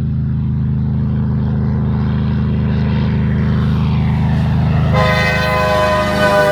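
A semi truck's horn blasts about five seconds in and is held for about a second and a half, over a steady low engine drone.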